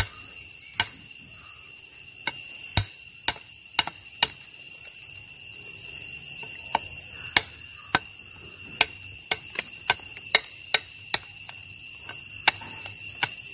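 Machete blade striking the husk of a red tender coconut in short, irregular chops as its top is cut off, the strokes coming faster for a few seconds past the middle. A steady high-pitched whine runs underneath.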